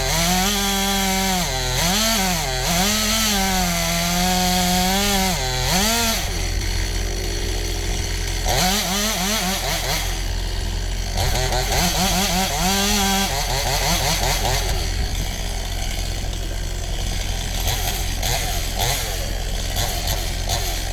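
Chainsaw cutting wood, its engine pitch dipping and recovering repeatedly under load. It runs in two spells, for the first six seconds and again from about eight to thirteen seconds, over a steady low engine hum.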